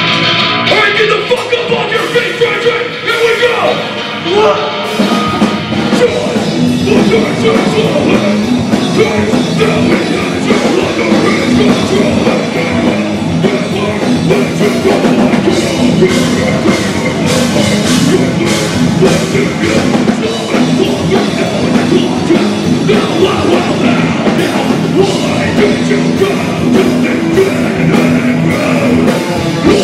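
Live heavy rock band playing loud: distorted electric guitars, bass and drum kit through stage amplifiers, with a vocalist singing into a microphone. Guitars alone at first, with the full band coming in about five seconds in.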